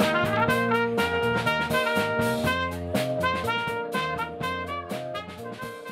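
Background music with a steady beat, slowly fading out toward the end.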